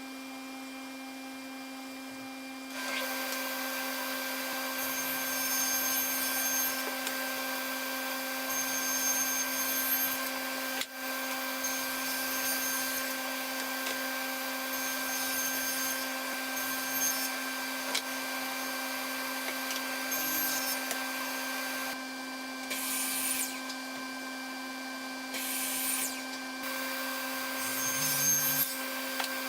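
Woodworking router running at a steady pitch, then cutting wood from about three seconds in, the cutting noise swelling and easing over repeated passes with short breaks near the end.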